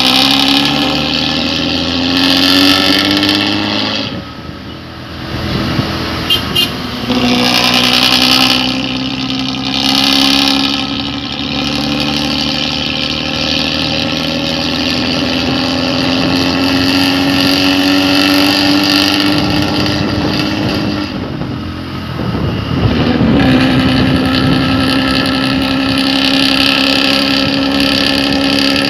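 Diesel intercity bus with a modified 'ngorok' (snoring) exhaust, the engine pulling under load with its note climbing steadily. The revs drop off twice, about four seconds in and again a little past twenty seconds, as it shifts gear, then climb again.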